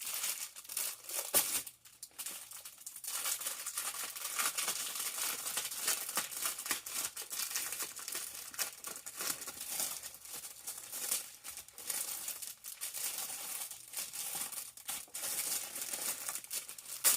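Plastic packaging and craft vinyl sheets crinkling and rustling as they are unpacked and handled.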